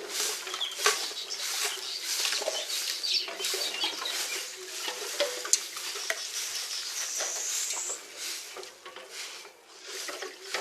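Broom sweeping a compound: a run of irregular, scratchy strokes.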